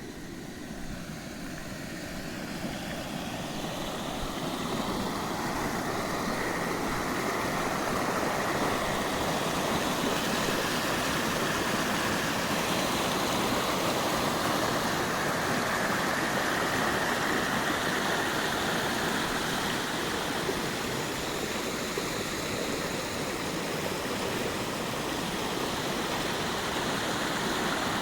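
Rushing water, a steady noise that grows louder over the first few seconds and then holds.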